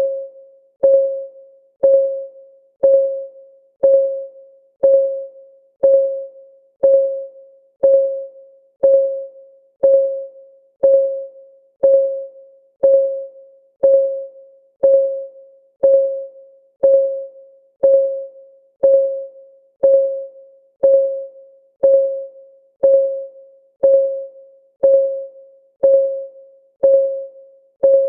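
Clock ticking sound effect counting off the seconds: one short, pitched tick each second, steady and even.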